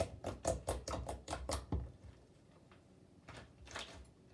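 Sticky slime being squeezed and worked in the hands, making quick wet clicks about three to four a second that stop about two seconds in, with a few more near the end.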